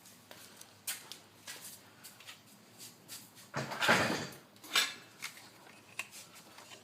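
Light clicks and knocks of hard objects being handled, with a louder clattering scrape about four seconds in and another shortly after.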